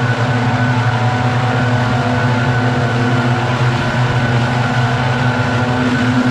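Several backpack leaf blowers running together, a loud steady drone with a strong low hum and engine tones, blasting piles of dry leaves.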